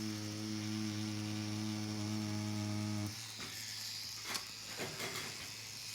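Tattoo machine buzzing steadily while lining, then switched off about three seconds in, followed by a few faint clicks.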